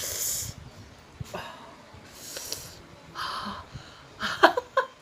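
A woman breathing in and out sharply and hissing through her mouth from the burn of a hot chilli, several breaths about a second apart. Near the end comes a louder, short gasp with some voice in it.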